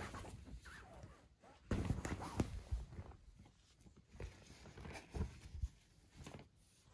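Cats play-fighting and moving about on a rug and floor cushion: soft thumps and rustling of bodies and paws, loudest in a cluster of thuds about two seconds in, with a few lighter thumps later.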